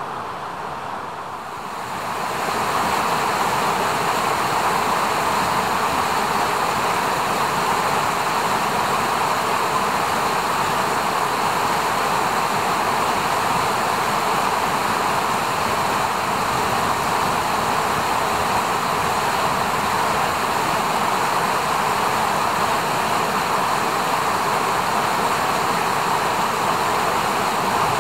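Steady rushing of a mountain river over rocks, louder from about two seconds in and then even.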